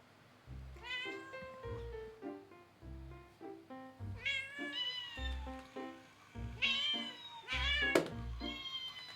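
Several high, kitten-like meows in quick succession, the later ones louder, with a sharp click near the end, over background music with a steady bass line.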